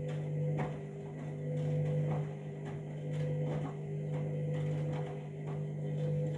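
Candy washing machine running early in its wash cycle: a steady motor hum as the drum turns, with soft, regularly repeated knocks and swishes from the wet load tumbling.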